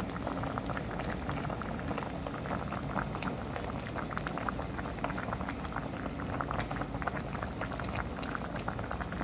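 Soup boiling steadily: dense bubbling with many small pops and crackles.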